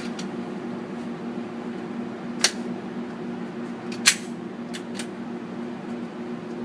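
Clicks from loading a Glock 41 pistol: a sharp click about two and a half seconds in, a louder one around four seconds, then two light clicks just after, over a steady background hum.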